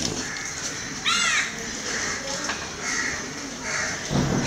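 A crow cawing: one loud harsh caw about a second in, then several fainter caws.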